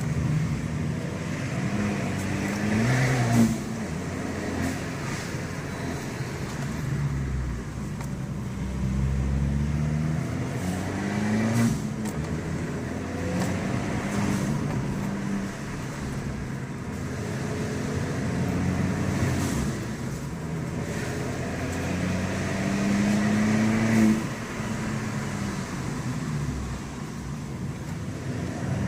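Abarth 595 Pista's turbocharged 1.4-litre four-cylinder engine pulling hard on a winding road: the revs climb repeatedly and fall back at gear changes and corners. Three sharp short cracks stand out, about three seconds in, near the middle and near the end.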